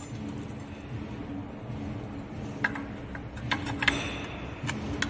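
Several sharp metal taps in the second half: a hammer knocking at the base of a barbed-wire take-up reel to free the wire coil. A steady low hum runs underneath.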